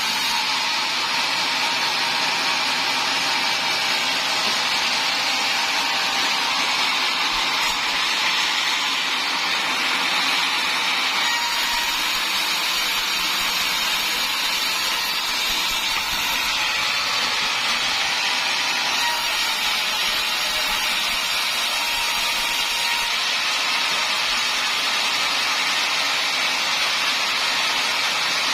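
Sawmill saw running steadily and cutting timber, a continuous high, even machine noise with no breaks.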